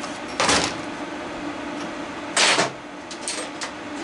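Two brief clattering noises of tools and hard plastic parts being handled on a workbench, about half a second and two and a half seconds in, over a steady low hum.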